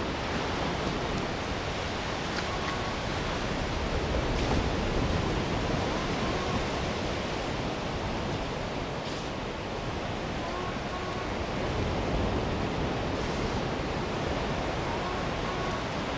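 Steady wash of ocean surf, with a few short, faint beeps from the metal detector.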